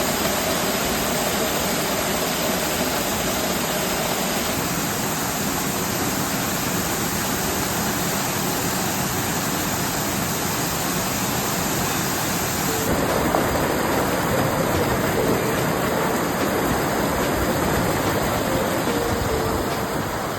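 Waterfall rushing in a steady, dense roar of water. About thirteen seconds in the sound changes character, as if moving to another part of the falls.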